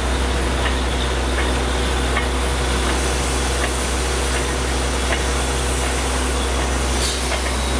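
Truck-mounted borewell drilling rig running steadily: a constant low engine drone under the hiss and splash of muddy water being blown up and spraying out around the drill pipe at the wellhead.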